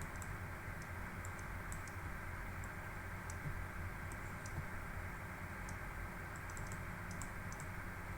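Faint, irregular light clicks, a few a second and spaced unevenly, over a steady low hum and hiss.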